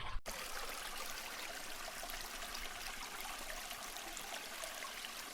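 Steady, even rushing noise of running water, starting abruptly just after a sudden cut.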